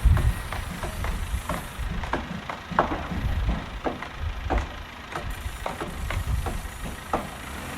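Construction site noise: a steady low machinery rumble with frequent, irregular sharp knocks, two or three a second, like hammering or metal being struck.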